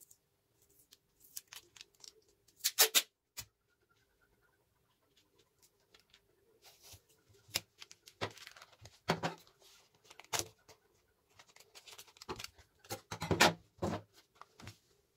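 Clear cello tape being pulled off and torn in strips, with paper crackling as it is handled and pressed down. There are several sharp rips, the loudest a few seconds in and another cluster near the end.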